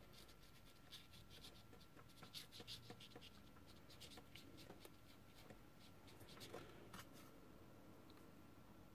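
Faint dabs and strokes of a watercolour brush on paper: a scatter of soft ticks and light scratches, with a faint steady tone under them.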